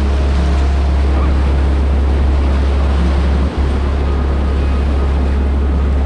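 Rushing whitewater of a river rapid, a steady loud hiss of water with a heavy low rumble on the microphone that drops out briefly about three and a half seconds in.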